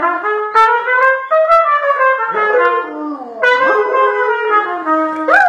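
Trumpet playing a phrase of several held notes, loud and close. Near the end a dog's howl rises in alongside it.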